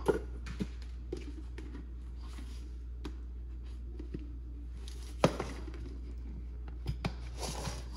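Scattered light clicks and knocks of kitchen utensils being handled at the stove while seasoning broth, with one sharper knock about five seconds in and a brief rustle near the end, over a steady low hum.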